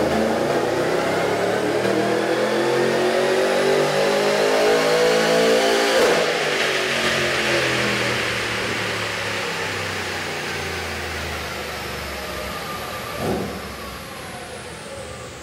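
Supercharged LS V8 making a full-power pull on a chassis dyno: the revs climb steadily to a peak about six seconds in, then the throttle is released and the engine winds down as the rollers coast, with a brief blip near the end.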